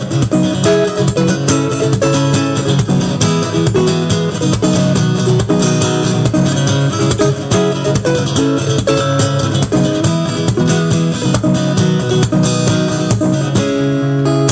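Guitar music: plucked and strummed guitar notes in a steady rhythm.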